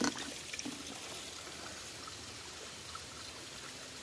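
Shallow stream water trickling and flowing steadily, with a brief knock at the start.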